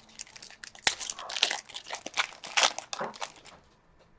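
Crinkling and crunching of trading-card pack wrappers and cards being handled, in irregular crackles with a sharp snap about a second in, dying away near the end.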